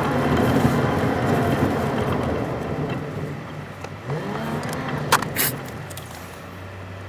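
Car and traffic noise, loudest at first and then fading, with two sharp clicks a little after five seconds in.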